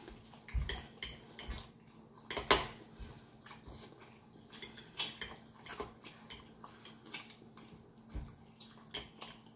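Eating sounds close to the microphone: chewing and mouth sounds on fried chicken, with a metal fork clicking against a plate. Scattered short clicks throughout, the loudest about two and a half seconds in.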